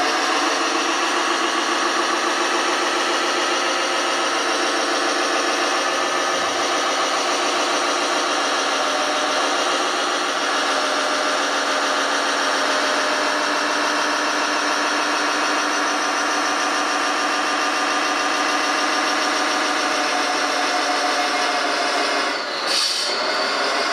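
Simulated diesel engine sound from an RC model Liebherr mobile crane's sound module, played through a small speaker, running steadily as the model drives. It dips briefly near the end.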